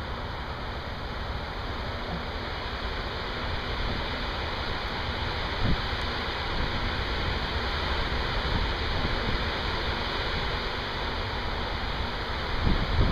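Heavy thunderstorm rain pouring steadily in an even hiss. Near the end, gusts of wind buffet the microphone with low rumbling thumps.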